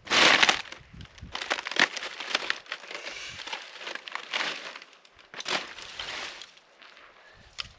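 Irregular crunching and rustling, with a loud burst right at the start and further scrapes and crunches every second or so.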